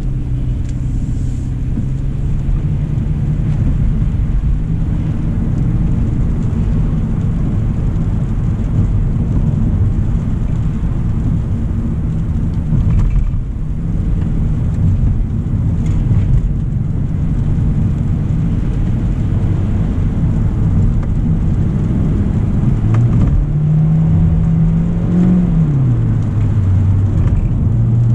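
2025 Hyundai Elantra SEL's 2.0-litre four-cylinder driving at speed: a steady low engine and road rumble. Near the end the engine note rises, then drops back.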